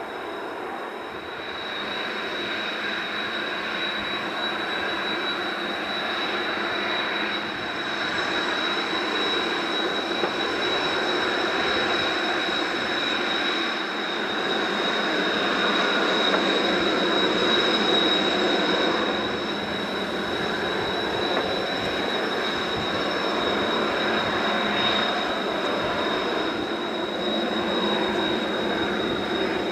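Kawasaki T-4 jet trainers in flight: steady jet engine noise with a high, constant whine, swelling to its loudest a little past the middle and then easing somewhat.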